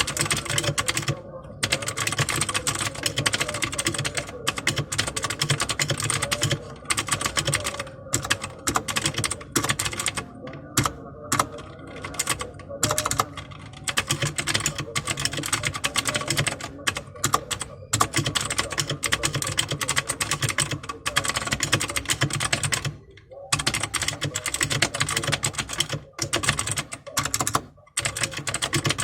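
Fast continuous typing on a Royal Kludge RK61 mechanical keyboard with Huano Blue clicky switches: a dense run of sharp key clicks, broken by a few brief pauses.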